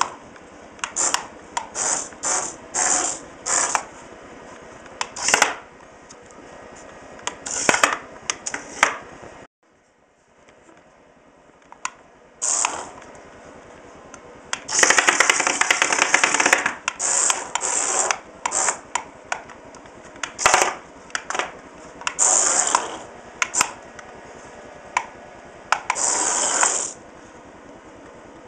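A small remote-control stunt car's electric drive motors whir in repeated short bursts as it spins and flips on its wheels. One longer run lasts about two seconds past the middle. Between the runs come sharp clicks and knocks from the wheels and body hitting the floor.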